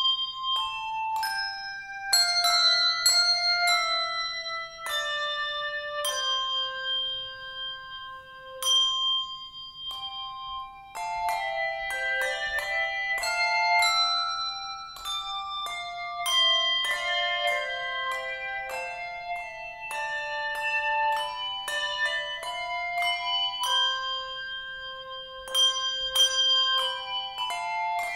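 Handbell choir ringing a tune in chords, each struck bell ringing on as the next notes come in.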